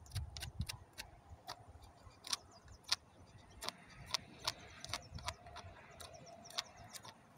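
Hoof pick scraping and clicking against a horse's hoof while packed mud and dirt are picked out: irregular sharp clicks, about two a second.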